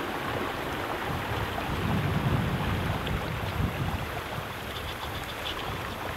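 Swollen, muddy floodwater rushing steadily, with wind buffeting the microphone in gusts that are strongest about two seconds in.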